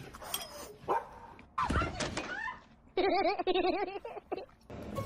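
Samoyed dog vocalizing: a loud, short, yelp-like call about two seconds in, then a wavering, warbling whine lasting about a second.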